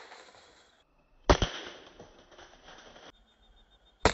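Shots from a Sharp Innova multi-pump air rifle: a sharp crack about a second in and another near the end, each followed by a short fading tail.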